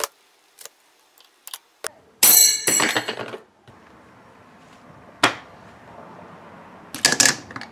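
Steel snap ring being worked off a 47RH transmission's output shaft: light clicks, then a loud metallic ring lasting about a second a little over two seconds in as the ring comes free. A single metal knock follows about five seconds in, and a short cluster of metal clinks near the end as the parts are handled.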